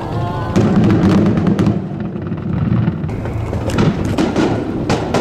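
Fireworks going off: a heavy run of booms and sharp crackles starts about half a second in and lasts around a second, and another cluster of bangs comes near the end.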